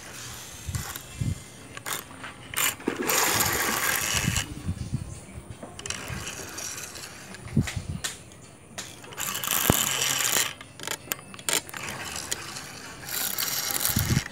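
Fishing reel running with a mechanical ratcheting sound in three longer bursts, about three seconds in, near the middle and near the end, with scattered clicks and a few low knocks between them.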